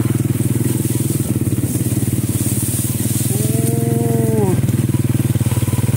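Small motorcycle engine running steadily, with a fast, even firing pulse. About three seconds in, a person's voice holds one drawn-out note for about a second.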